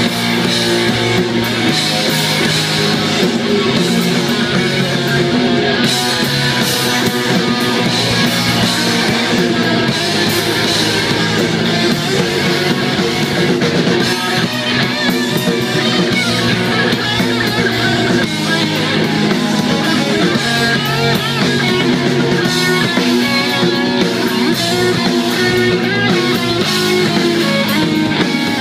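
Live rock band playing loud: electric guitars and a drum kit going without a break.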